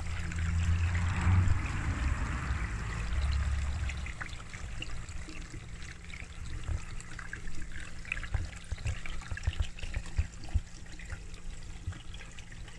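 Water trickling and splashing steadily in a garden koi pond, with many small irregular ticks. A low rumble runs under it for the first few seconds, then stops.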